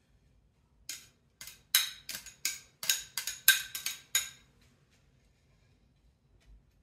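Metal salad tongs clicking against a small bowl while coriander is lifted out onto a salad: about a dozen sharp clicks over some three seconds, starting about a second in.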